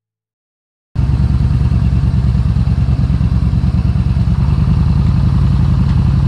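Motorcycle engine running loud and steady close by, a low rumble with a rapid pulse; it cuts in suddenly about a second in.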